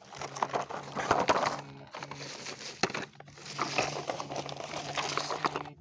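Crunching and scraping of dry sand and plastic as toy trucks are handled and moved through the sand, irregular and full of small clicks, in two stretches with a short lull about two seconds in.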